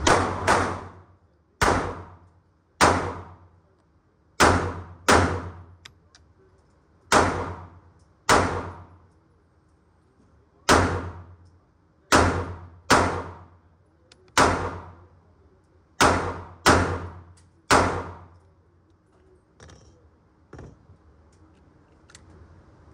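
About fifteen shots from a Springfield pistol, fired singly and in quick pairs at an uneven pace, each echoing briefly off the walls of an indoor range. The shooting stops about 18 seconds in, followed by two faint clicks.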